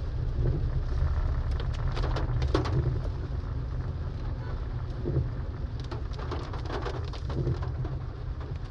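Rain hitting a moving car's windshield and roof, heard inside the cabin over a steady low road rumble. Clusters of sharper drop hits come about two seconds in and again around six to seven seconds.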